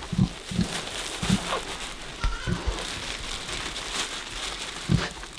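Rustling and crackling handling noise, with a few soft low thumps scattered through.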